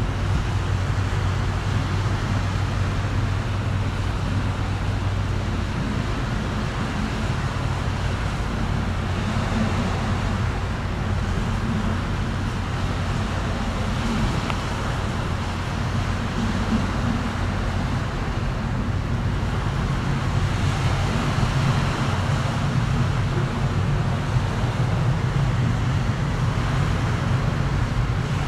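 Steady low rumble of distant engines and traffic, with a low hum that drops out about six seconds in and a slightly higher hum that comes up in the second half.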